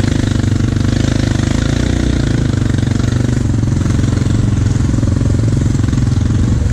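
An ATV engine running steadily close to the rack-mounted camera, holding an even speed with no revving.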